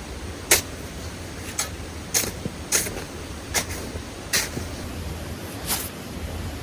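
A creek running steadily, with about seven short sharp snaps or knocks at uneven intervals over it.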